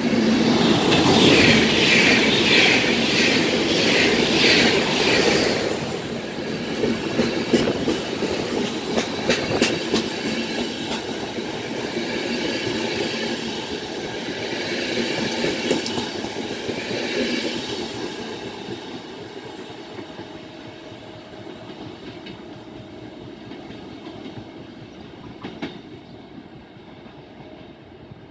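Intercity passenger coaches running past along the platform, the wheels clattering in a rhythm over the rail joints with scattered clicks. Loudest in the first few seconds, the noise fades steadily over the last ten seconds as the train moves away.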